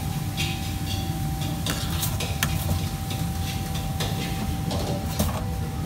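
Commercial kitchen background: a steady machine hum with a constant whine, over which dishes and utensils clink and clatter now and then.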